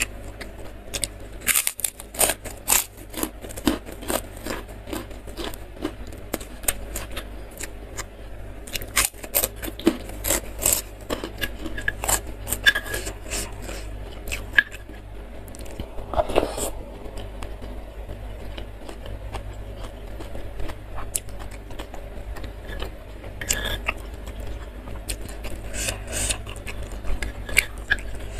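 Close-up eating sounds: crisp kerupuk crackers crunching as they are bitten and chewed, in several bouts of sharp crunches, with wet chewing between. A metal spoon scrapes now and then against a stone mortar bowl.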